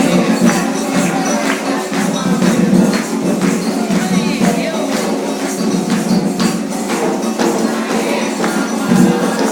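Live Afro-Brazilian ritual percussion music: hand percussion and shakers keep a steady, fast beat of about two to three strikes a second.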